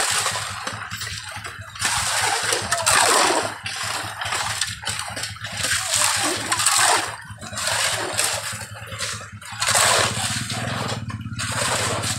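Shovels and hoes scraping and chopping through wet gravel and mud in irregular strokes, with an engine running steadily underneath that grows louder over the last couple of seconds.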